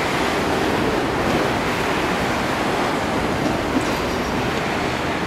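Street traffic noise on a snowy road: a streetcar running along the street while a city bus passes close by. The noise is a steady, even rush with no clear rhythm.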